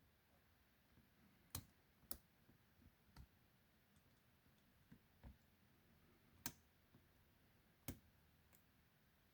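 Faint, irregular clicks, about six of them, as a lock pick works the pin stack of a 40mm Mi-Lock padlock; the pins give no clear feedback to the picker.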